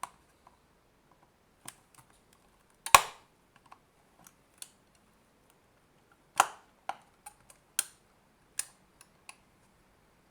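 Scattered sharp clicks and knocks of hard plastic as the cut-open Nintendo Switch AC adapter case is handled and pried at. The loudest knock comes about three seconds in, followed by a run of smaller clicks from about six to nine seconds.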